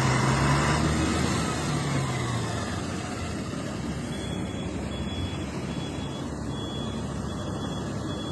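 Motor vehicle engine running amid steady traffic and road noise, its low hum sinking slightly in pitch over the first few seconds. From about halfway through, a high beep repeats about once every three-quarters of a second.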